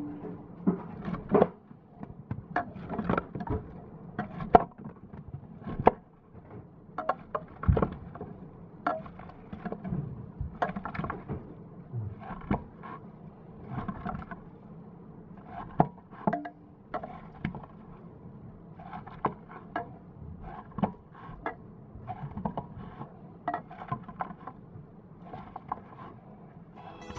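Soaked Orbeez water beads being crushed in a glass container: an irregular run of crunches, crackles and sharp clicks, some louder than others.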